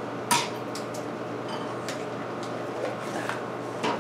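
Metal tools and parts clinking on a workbench as they are handled: one sharp clink about a third of a second in, then a few lighter clicks.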